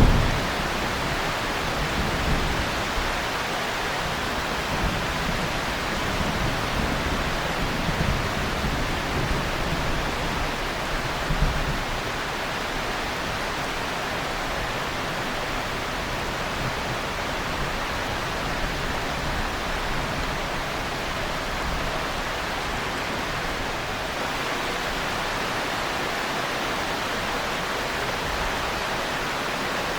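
Heavy, steady rain. Thunder rumbles low in the first dozen seconds and dies away, leaving only the even hiss of the rain.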